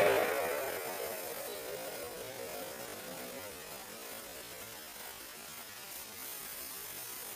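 Background music fading out, then a faint, steady hiss and hum with no distinct events.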